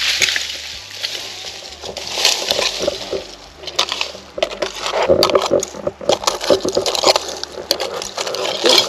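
Hand-digging through soil and leaf litter in an old bottle dump: irregular scraping and crunching, with sharp clinks of buried glass knocking together.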